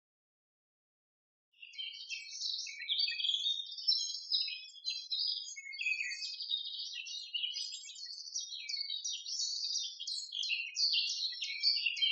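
Songbirds chirping and singing, a busy stream of short, high notes that starts about a second and a half in, after silence.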